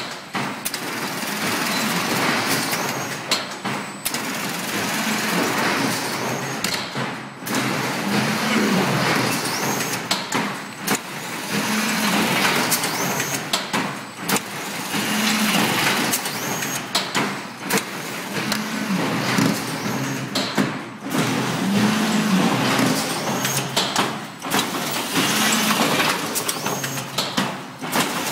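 Automatic paint brush head assembly machine running: a steady mechanical clatter with air hiss from its pneumatic cylinders, dipping briefly about every three and a half seconds as its work cycle repeats.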